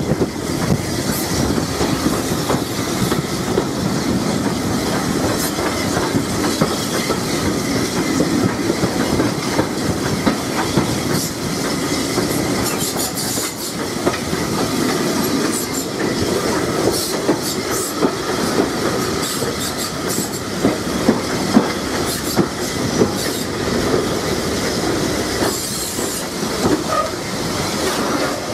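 Railway coach wheels rumbling and clicking over rail joints as a steam-hauled train's coaches pass close alongside on the adjacent track, with a steady rumble and frequent sharp clicks throughout.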